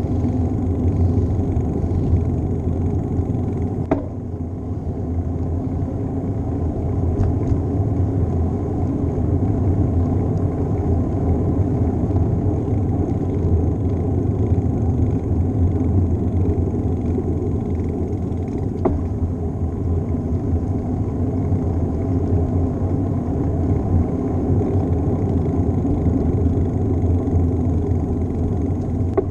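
Steady wind and road rumble on a GoPro microphone riding along on a moving bicycle, with two sharp clicks, one about four seconds in and one about two-thirds of the way through.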